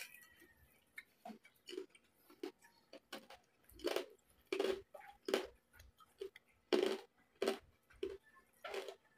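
Close-miked chewing of a handful of crispy pork and rice: a string of short, irregular crunches and mouth smacks, about one or two a second.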